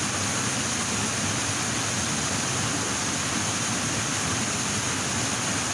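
Steady rushing of nearby river water, an even, unbroken hiss.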